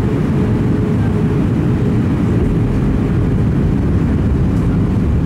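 Steady, low-pitched noise of an Airbus A320 in flight, its engines and the air rushing past the fuselage, heard inside the passenger cabin during the descent to land.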